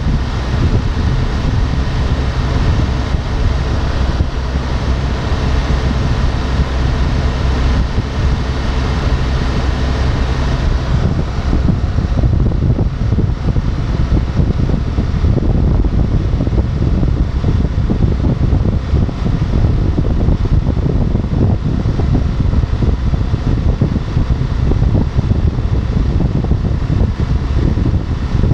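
Motorcycle cruising at highway speed: a steady engine drone under a loud rush of wind over the microphone. The higher part of the rushing eases about eleven seconds in.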